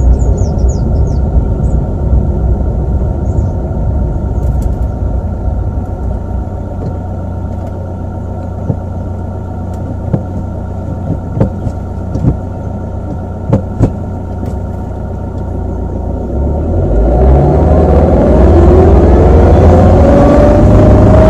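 Suzuki car's engine heard from inside the cabin, running steadily at low revs, with a few sharp clicks around the middle. From about seventeen seconds in it is floored in reverse gear and its pitch climbs steadily as the revs rise.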